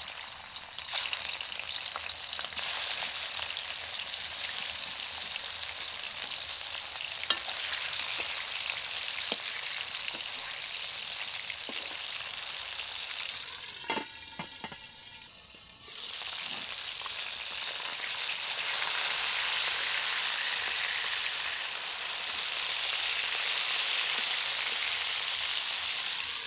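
Pieces of magur (walking catfish) frying in hot mustard oil in a kadai: a steady sizzle with the oil spitting hard. A brief knocking clatter partway through, after which the sizzling comes back louder.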